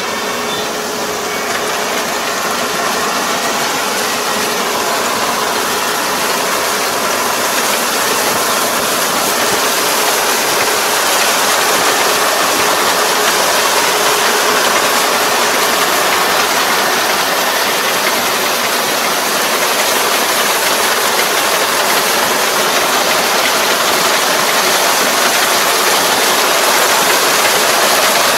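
Rice combine harvester running steadily, a loud, even mechanical din from its engine and machinery.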